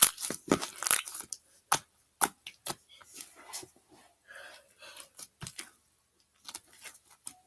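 Thick glittery slime with foam beads being kneaded and stretched by hand, giving sharp crackles and pops. The crackling is densest in the first two seconds and grows sparser as the slime is pulled apart.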